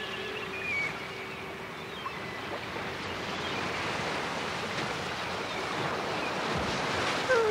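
Ocean surf from a new age cassette recording, a steady rush of waves that grows louder after about two seconds. A held synth tone fades out in the first second, and the music comes back in just at the end.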